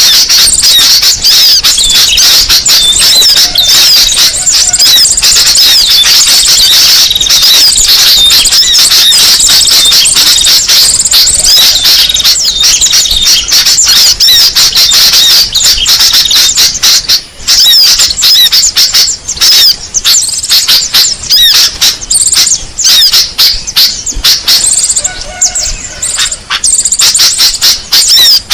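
Bird-lure recording of many small birds calling at once: a loud, dense, unbroken chatter of high-pitched chirps and squeaky calls, played to draw small songbirds in.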